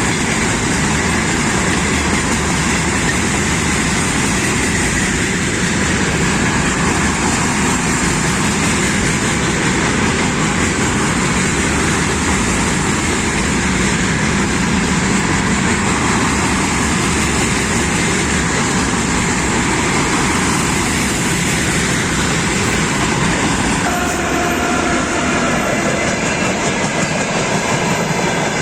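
Freight train rolling past, its wagon wheels clattering steadily over the rail joints. A faint steady whine joins in near the end.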